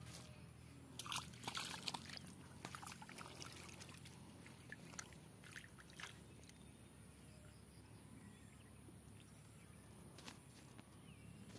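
Faint rustling and small splashes of pond water and floating weed stirred by a fishing rod and line. A cluster of crackles comes in the first few seconds, then a few single clicks.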